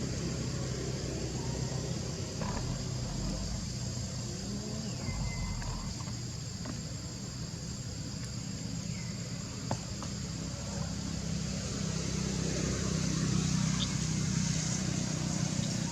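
Outdoor ambience: a steady low engine-like hum under a constant high insect drone, with a few faint clicks and two short falling chirps.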